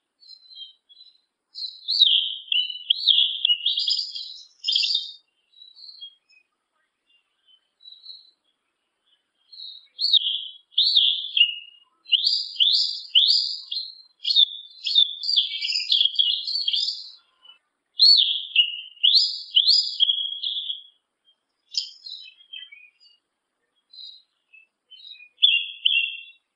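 Yellow-legged thrush (sabiá-una) singing in two long bouts of rapid, high warbling phrases made of quick sweeping notes. The second bout runs about ten seconds, and scattered single notes fall between the bouts and near the end.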